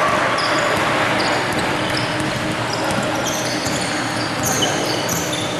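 Sneakers squeaking again and again on a hardwood basketball court, in short high squeals, with a basketball being dribbled over the steady noise of the gym.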